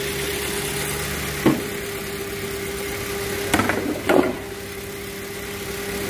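Hyundai Elantra 1.6 DOHC 16-valve four-cylinder engine idling steadily while misfiring, its rough running the sign of a cylinder not firing properly, which the mechanic suspects is electrical (ignition coil). Three sharp knocks sound over the idle, the first about a second and a half in and two more around the middle.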